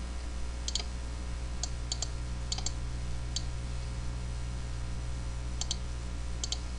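Computer mouse clicks, scattered and often in quick pairs, over a steady low electrical hum.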